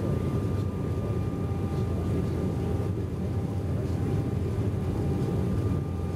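Cabin noise of an Embraer E195 jet during the climb after takeoff: the steady low rumble of its GE CF34-10E turbofan engines and rushing airflow, with a faint steady whine above it, heard from inside the passenger cabin.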